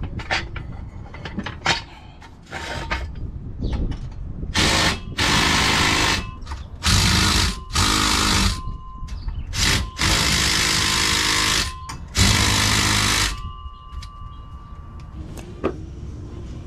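A power tool run in about seven short bursts, each half a second to two seconds long, driving bolts at the driveshaft of an all-wheel-drive Honda conversion. Light clicks and knocks of tool handling come before and after.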